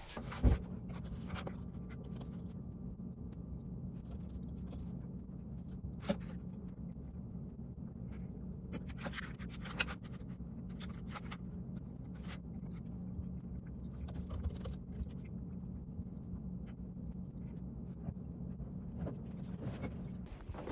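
Steady low room hum with scattered light scratches and clicks of hands handling a paper wrapper and tapping on a laptop keyboard, and one sharp knock about half a second in.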